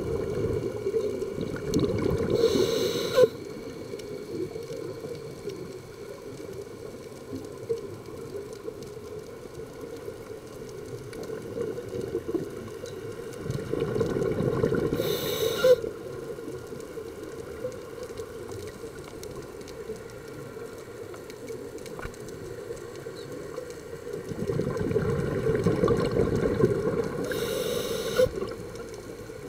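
Scuba breathing underwater through a regulator: three long bubbling exhalations about twelve seconds apart, each ending with a short hiss.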